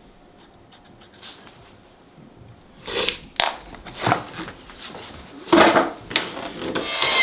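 A vinyl flooring plank being handled and set up for a cut, with a few short knocks and scrapes. Near the end a jigsaw starts up and begins cutting, getting louder.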